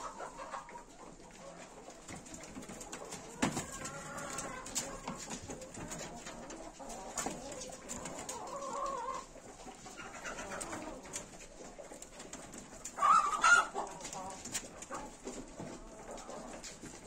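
Farm birds calling in the background, a few separate calls with the loudest about thirteen seconds in.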